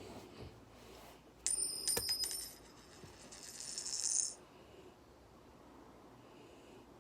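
A sudden burst of high metallic clinking and ringing about a second and a half in, lasting about a second, then a rising rustling noise that cuts off abruptly about four seconds in.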